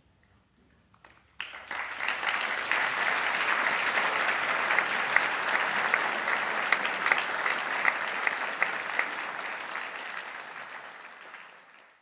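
Opera audience applauding. It breaks out suddenly about a second and a half in after a brief hush, holds steady, and fades out near the end.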